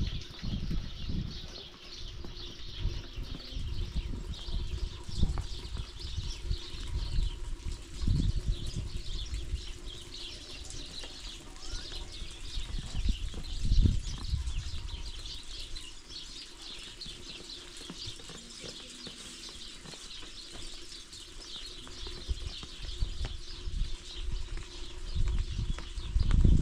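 Many small birds chirping continuously over irregular low rumbles and thumps.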